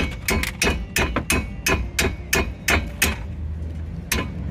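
Socket ratchet clicking in a steady run of sharp metallic clicks, about three or four a second, as the brake caliper bracket bolts are tightened. The clicks pause for about a second near the end, then resume.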